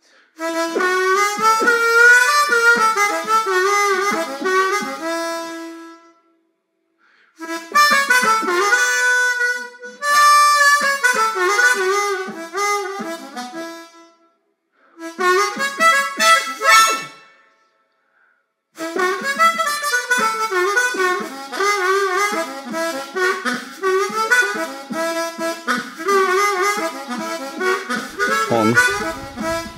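Background music led by a harmonica, played in melodic phrases with short silent pauses between them.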